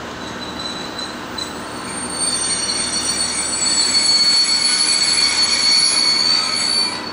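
Freight train's wheels squealing as the container wagons roll slowly through the station tracks: a steady high-pitched squeal over the rumble of the wagons, growing louder from about two seconds in and dropping away sharply near the end.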